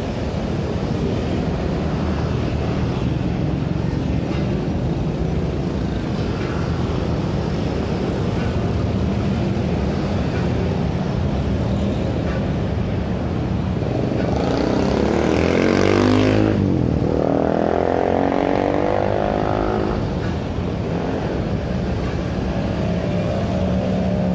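Busy street traffic: a steady stream of motor scooters and cars driving past. About two-thirds of the way in, one vehicle passes close by, swelling to the loudest point and then falling away.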